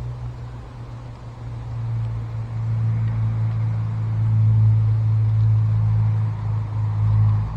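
Low, steady engine drone that grows louder over a few seconds and eases off near the end, as of a vehicle passing by.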